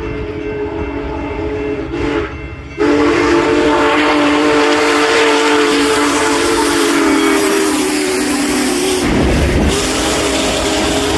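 Union Pacific 4014 'Big Boy' steam locomotive's chime whistle blowing long, loud blasts as it approaches, with a brief break about two seconds in before it comes back much louder. The tone sags a little near the end of the blast. About nine seconds in, the whistle stops and a heavy low rumble of the locomotive and tenders rolling past takes over.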